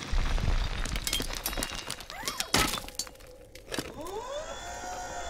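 Film sound effects: debris and rubble clattering and breaking after an explosion, then a rising-and-falling whirring tone near the end.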